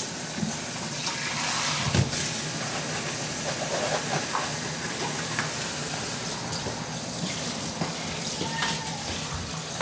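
Water running steadily from a tap into a sink, with a single knock about two seconds in.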